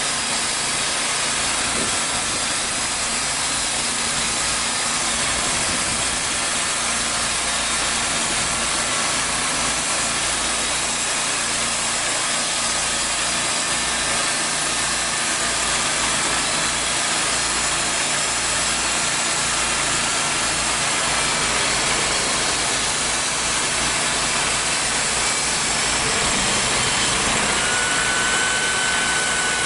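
TimberKing portable band sawmill running steadily on its gas engine, the band blade sawing through a log.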